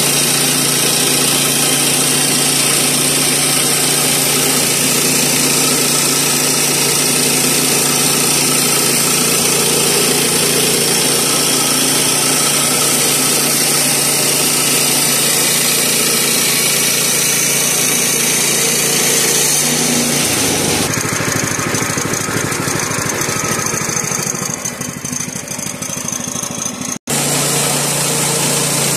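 Woodland Mills HM122 portable bandsaw mill's 7 hp gas engine running steadily while the band blade saws through a sycamore slab. About two-thirds of the way through the engine note drops and wavers. Near the end the sound cuts out for an instant, then the engine is running steadily again.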